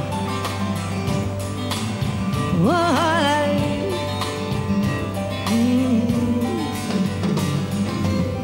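Live band playing an instrumental break of a folk-pop song: acoustic guitar strumming over bass and drums with a steady beat. A wordless sung line slides up and wavers about three seconds in.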